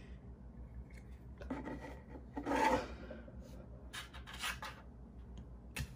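Handling noise from the bare plastic chassis of a disassembled Oral-B electric toothbrush on a tabletop: irregular rubbing and scraping, with a sharp click near the end.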